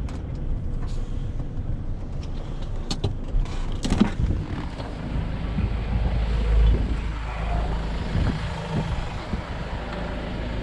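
Ford Transit van's engine running steadily with a low rumble, with a couple of sharp knocks about three and four seconds in.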